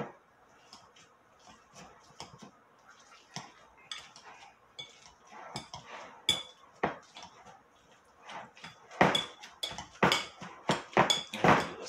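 A metal fork mashing avocado in a glass bowl: irregular clinks and taps of the fork against the glass with soft squelches, sparse at first, then faster and louder for the last few seconds.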